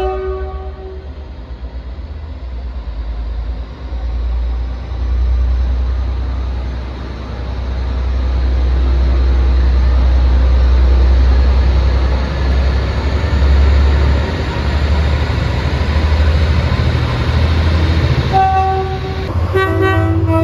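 A train horn's multi-note chord cuts off about a second in. A long stretch of heavy low rumble follows as a train passes. Near the end the horn sounds again in two short blasts.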